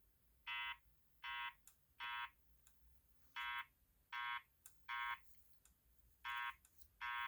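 EST Genesis fire alarm speaker strobe sounding the temporal-three evacuation tone between its voice messages. It plays groups of three short, identical pitched beeps, with a pause after each group, repeating.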